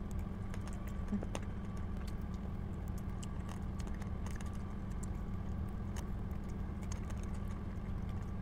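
Close-up eating sounds: irregular chewing and wet mouth clicks while biting into a barbecue chicken wing held in the hand and stripping the meat off the bone. A steady low hum runs underneath.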